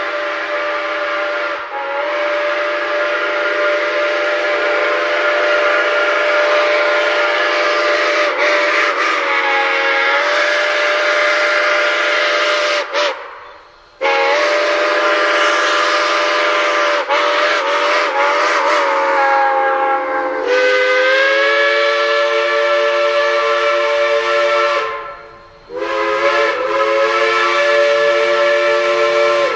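DT668 steam locomotive's whistle blowing a series of long blasts, about four, each a chord of several tones that wavers slightly in pitch, with short breaks between them.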